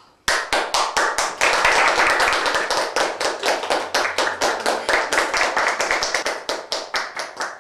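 A small group clapping, starting suddenly and thinning out near the end.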